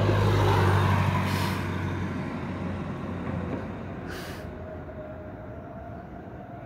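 Engine of a heavy vehicle passing on the street, a low hum with a hiss over it, loudest at first and fading steadily as it drives away.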